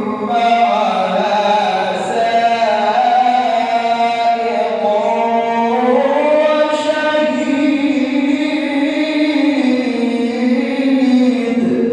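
A man reciting the Quran in the melodic tajweed style, drawing out one long sung phrase whose pitch glides slowly up and down before it fades out near the end.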